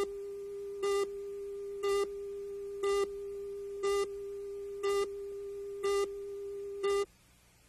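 Tape countdown leader: a steady electronic tone with a brighter beep once a second as each number ticks down, seven beeps in all. The tone cuts off suddenly about seven seconds in, leaving faint tape hiss.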